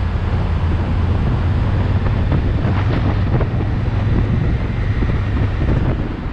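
Motorcycle engine running at a steady, low hum while riding, with wind rushing over the helmet-mounted microphone.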